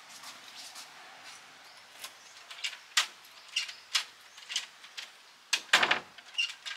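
Key rattling and clicking in a wooden door's knob lock as the lock is worked without catching: a run of sharp metallic clicks about twice a second from two seconds in, the loudest with a low knock of the door near the end.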